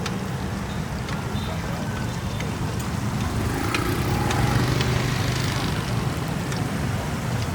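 Busy street-food market ambience: a steady low rumble with faint voices in the background and a few light clicks and taps.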